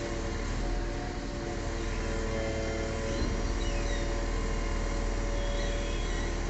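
Truck-mounted crane's engine running steadily, a continuous hum with several steady pitched tones.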